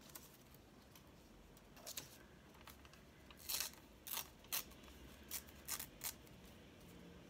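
Paper being torn and pulled apart by hand: a series of about seven short, sharp rips and crinkles, the loudest in the middle stretch.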